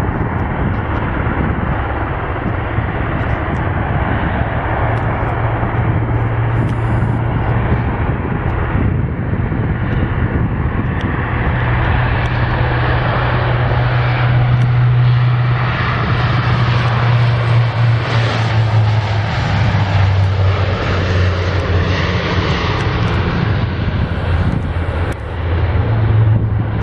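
Bombardier Dash 8 Q400 turboprop at take-off power on its take-off run and climb-out: a steady loud engine and propeller drone with a deep hum, loudest around the middle.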